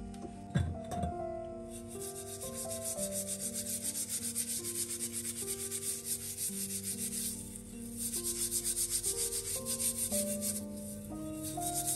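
A steel-wool scrubber scouring a metal gas-stove burner cap coated in cleaning paste, in brisk rhythmic back-and-forth strokes with a couple of short pauses. A couple of sharp knocks come just before the scrubbing starts.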